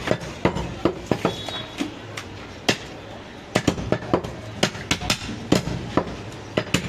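Butcher's cleaver chopping mutton leg on a round wooden log block: an irregular run of sharp chops, often several a second, with a short pause in the middle.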